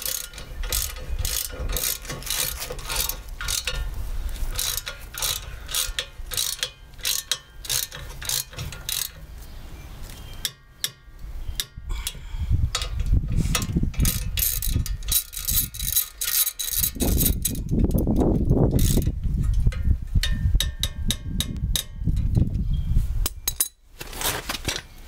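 Hand ratchet wrench clicking in quick runs as a bolt is worked on the front brake assembly. Low rumbling swells come in during the second half.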